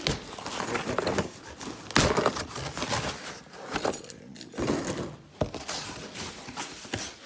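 Cardboard packaging being opened and handled: irregular rustling, scraping and knocks, with light jingling clinks.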